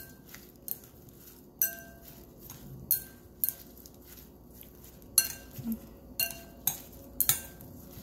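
Spoon and chopsticks clinking against a glass mixing bowl while tossing salad: a string of sharp, irregular clinks, each with a short glassy ring.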